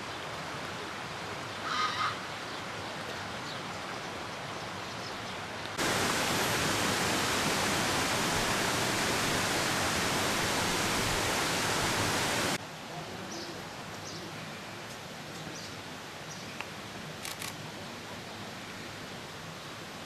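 Outdoor ambience: a steady rushing noise bed, with a short high call about two seconds in. In the middle, several seconds of much louder, even rushing noise start and stop abruptly.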